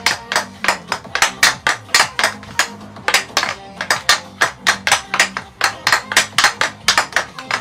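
Hockey stick blade stickhandling a golf ball on a smooth training pad: quick hard clacks, about four to five a second, as the ball is tapped side to side. Faint background music underneath.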